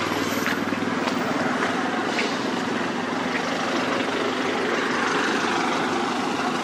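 A motor vehicle's engine running steadily: a low, rapidly pulsing hum under a constant hiss.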